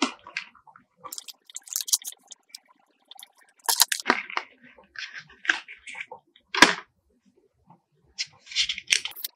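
Scattered clicks and short rustling noises at irregular intervals, with a pause of about a second and a half in the middle.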